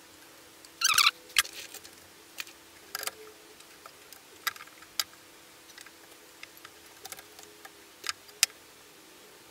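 Metal equipment chassis being handled on a workbench: scattered sharp clicks and taps, with a short rattling cluster about a second in, over a faint steady hum.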